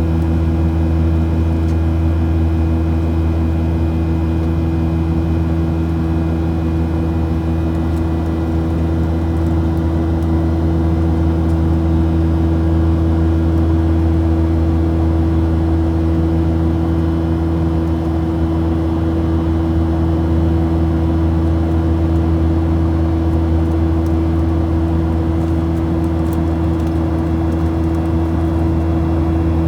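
Aircraft in flight heard from inside the cabin: a loud, steady low drone with several steady higher tones above it, holding an even pitch and loudness throughout.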